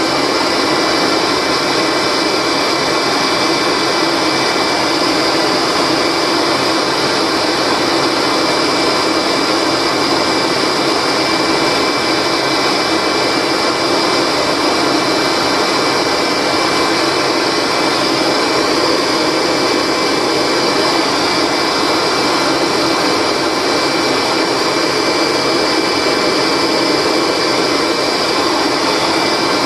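Kirby Diamond Edition upright vacuum's motor running steadily, with a rush of exhaust air blowing from its filltube. The loud, even rush carries a thin, steady high whine.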